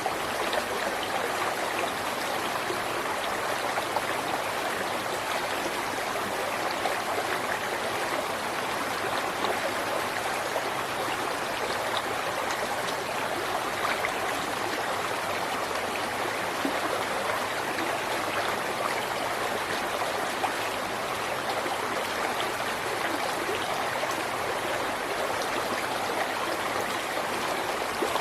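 River water flowing steadily over rocks, a continuous rushing with small splashes and trickles.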